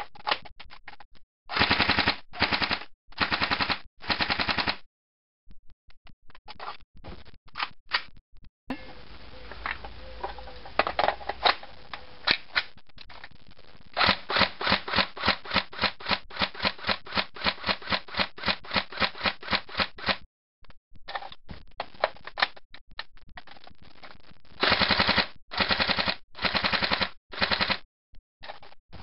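Tokyo Marui M4 SOPMOD battery-powered blowback airsoft rifle firing. First come several short bursts, then a few seconds of continuous full-auto fire, then a long run of quick, evenly spaced shots at about five or six a second, and finally four more short bursts.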